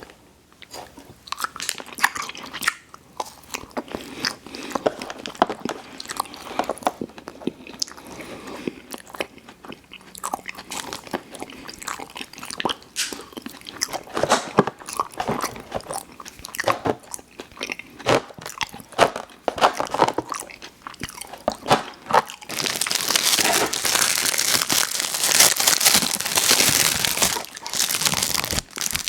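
Close-miked ASMR eating of sweets: bites, crunches and wet chewing, heard as a stream of small clicks. About 22 seconds in, a loud, dense rustling of packaging takes over for several seconds.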